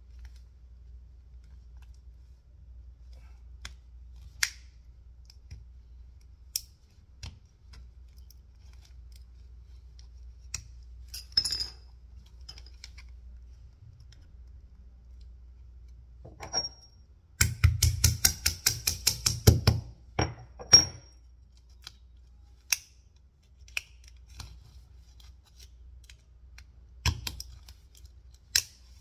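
Small sharp clicks and scrapes of a screwdriver tip prying at a hard plastic clothing security tag, scattered singly. About two-thirds of the way through comes a quick run of clicks lasting about two seconds, the loudest part.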